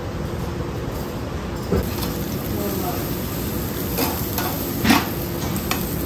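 Duck meat sizzling on a round wire grill grate, with metal tongs clicking against the grate a few times as the pieces are turned.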